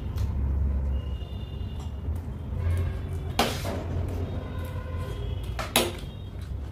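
A steel spoon scrapes once in a steel bowl about halfway through and clinks sharply near the end, over a steady low hum.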